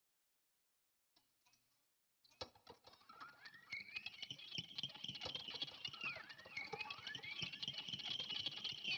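Creaking, squeaking sound effect: dense crackling clicks under a high squeak that wavers and dips in pitch, starting about two seconds in.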